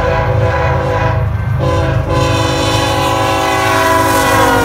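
Diesel freight locomotive's multi-chime air horn blowing loud and long over the deep rumble of the passing train. The horn briefly breaks and changes notes about one and a half to two seconds in, and its pitch slides slightly lower near the end.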